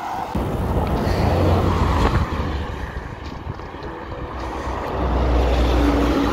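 Highway traffic passing close by: a campervan goes by early, then a heavy truck passes near the end, two swells of low rumbling road and engine noise.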